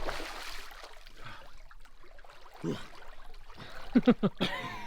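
A person jumping into a rock pool: a splash right at the start, with water washing about for roughly a second. Short wordless vocal sounds follow near the end.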